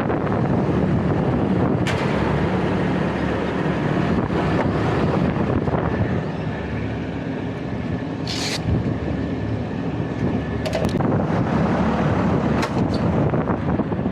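Steady mechanical drone of running HVAC equipment, with a constant hum. There are a few sharp clicks, and a short hiss about eight seconds in.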